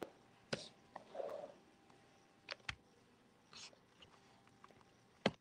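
A few faint, scattered knocks and clicks from footsteps in platform pole-dance heels on a wooden floor and from handling the recording device, the loudest knock near the end. No music is playing yet.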